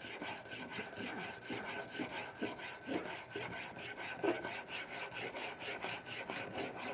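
A wide steel Japanese plane blade rubbed rapidly back and forth on a wet 500-grit waterstone: a gritty scraping repeating at about four to five strokes a second. The strokes are raising a burr along the whole edge.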